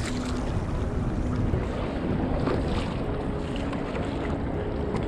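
Sea water splashing and lapping against the hull of a pedal kayak, with steady wind noise on the microphone.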